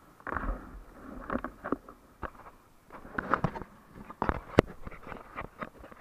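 River water splashing around an inflatable whitewater raft, with irregular splashes and sharp knocks, the loudest knock about four and a half seconds in.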